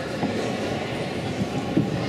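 Reverberant hubbub of people arriving in a large stone church: indistinct chatter and shuffling footsteps, blending into a steady rumble.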